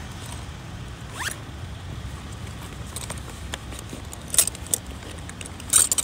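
Zipper on a Bauer 24-inch soft fabric tool bag being worked open and shut in short strokes, with a rising zip about a second in. Two sharper, louder handling noises come about four and a half seconds in and near the end.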